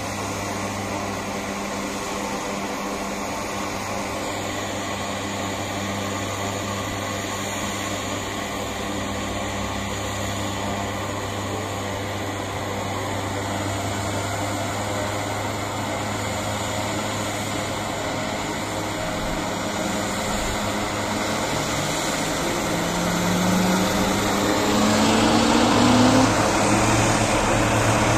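Turboprop engines of a small twin-engine aircraft running on the ground: a steady hum and whine that slowly grows louder. Late on, the engine note climbs in pitch and the sound swells sharply.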